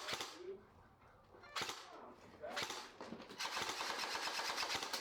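Airsoft guns firing: a few single sharp shots, then from about two-thirds of the way in a long full-auto burst, a rapid, even mechanical clatter.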